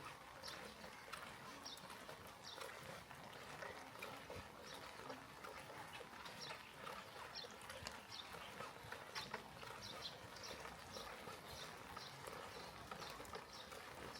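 Light rain falling, a faint steady hiss with many small irregular ticks of drops, a few each second.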